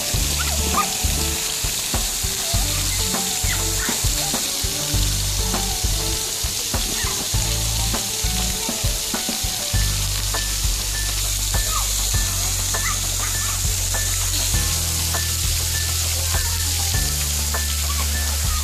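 Splash-pad fountain jets spraying water with a steady hiss, over background music with a low bass line.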